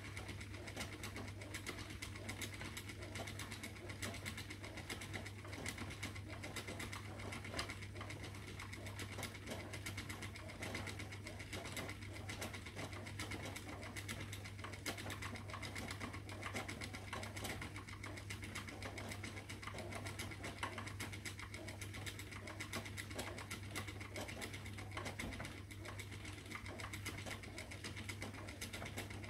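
Spinning wheel running steadily while plying yarn: a constant low hum with fast, fine mechanical ticking.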